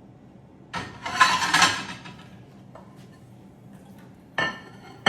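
A spoon scraping and digging out the flesh of a halved pineapple for about a second, then two short clinks of the utensil against a dish near the end.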